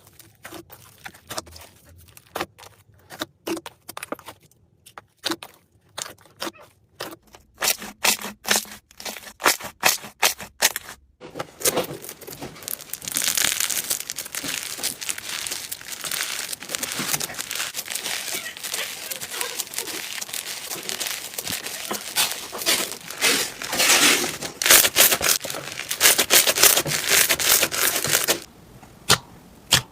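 Slime being played with, making crisp crackling and popping: separate sharp pops at first, then from about eleven seconds in a dense, continuous crackle that stops abruptly near the end, after which separate pops return.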